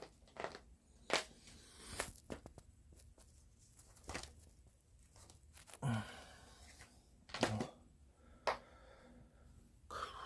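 Cat's claws snagging and pulling at knitted fabric: scattered short scratchy rustles with quiet gaps, and two dull thumps about six and seven and a half seconds in.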